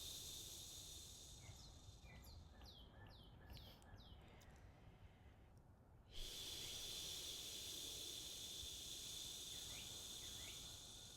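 Faint songbird calls: a quick run of short down-slurred chirps about two seconds in, and a few more near the end, over a steady high hiss that drops away for a few seconds and then cuts back in suddenly.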